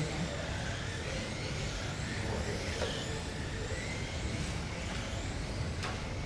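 GT12 1/12-scale electric RC cars racing on a carpet track, their motors whining up and down in pitch as they accelerate and slow. Two sharp knocks, about three seconds in and near the end.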